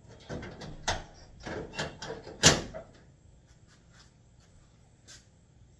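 Knocks and clunks from a car hood that has just been lowered and is being settled shut. The loudest is a sharp thump about two and a half seconds in.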